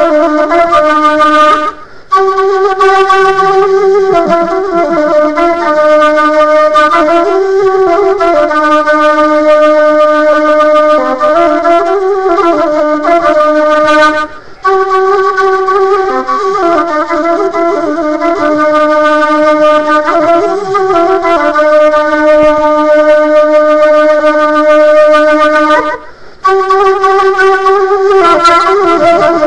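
Instrumental background music carried by one held, slowly moving melody line. It breaks off briefly three times, about twelve seconds apart.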